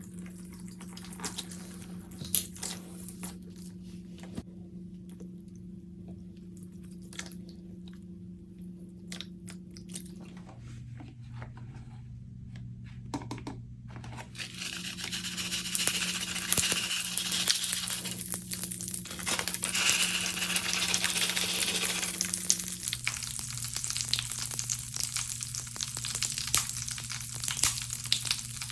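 Scattered light clicks and crinkles over a low steady hum. From about halfway through comes a dense crackling, fizzing hiss as pine cleaner and bath crackle crystals are poured in. The crystals crackle and sizzle in the liquid.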